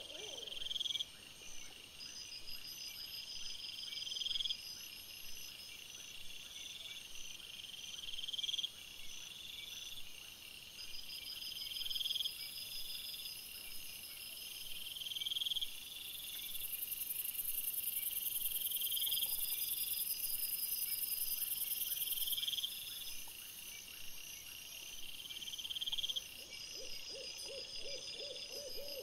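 Night insects calling: a high-pitched call that swells and then cuts off every three to four seconds, over a faster, fainter high pulsing. A steady high hiss grows louder for several seconds in the middle.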